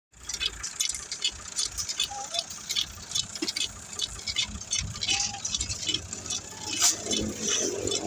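Hot bitumen sprayed from a hand-held lance onto loose stone chips: a spattering hiss with irregular crackles. A tractor engine runs low underneath.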